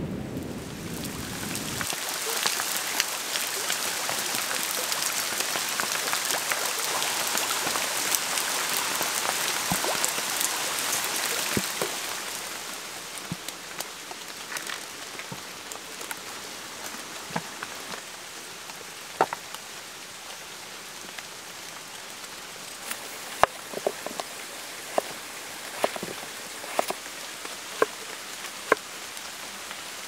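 Rain falling, with a low thunder rumble dying away in the first two seconds. The rain is heavy and dense for the first dozen seconds, then eases to lighter rain with scattered sharp ticks of drops on surfaces.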